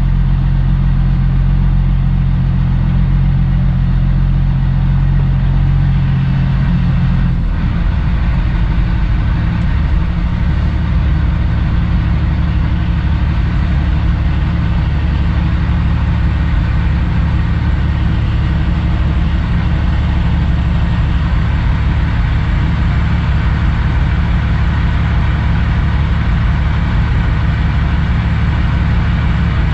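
Cummins ISX diesel engine of a 2008 Kenworth W900L running low and steady as the truck creeps slowly into a parking spot. The engine note shifts lower about seven seconds in.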